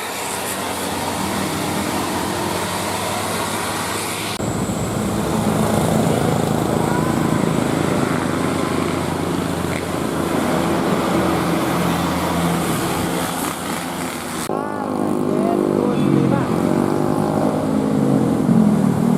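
Large buses driving past with engine rumble, mixed with people's voices, which become shouting in the last few seconds. The sound changes abruptly twice, about four and fourteen seconds in.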